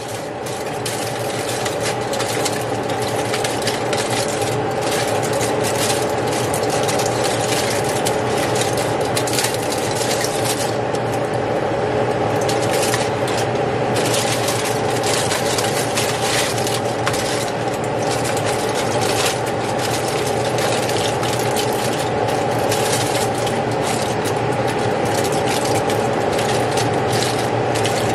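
Aluminium foil crinkling and crackling continuously as it is pressed and crimped over a plastic bowl, over a steady mechanical hum.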